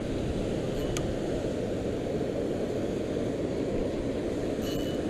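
Steady low rushing noise of churning water below a dam, with a couple of faint ticks about a second in and near the end.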